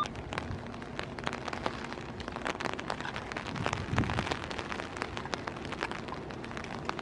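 Heavy rain pattering on an umbrella rigged over the camera, with irregular sharp drops. Under it runs a low rumble of Amtrak bilevel passenger cars rolling slowly past.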